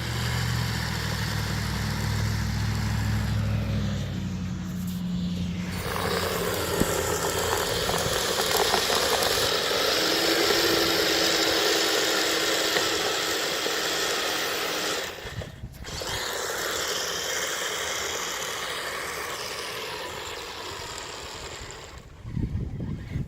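Kyosho Blizzard SR radio-controlled snow vehicle driving and plowing, its electric motor whining under a loud, even rushing of tracks and blade through snow. The noise drops out briefly about two thirds of the way in, comes back and fades. A low engine-like hum is heard at the start.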